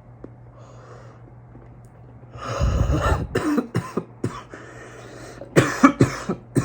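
A person coughing hard after a long hit from a disposable vape pen: a loud, rough exhale-and-cough about two and a half seconds in, a few short coughs after it, then another run of sharp coughs near the end.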